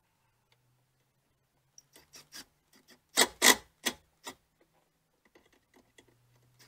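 Cordless Milwaukee Fuel impact driver run in a few short trigger bursts a little past the middle, spinning a nut onto a stud to hold a plastic cowl shield. Light clicks and scrapes of the tool and the plastic part come before and after.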